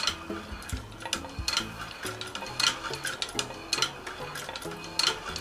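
Old Pfaff patcher leather sewing machine turned slowly by hand at its handwheel, its needle and shuttle mechanism clicking and clacking irregularly about twice a second as it stitches through leather.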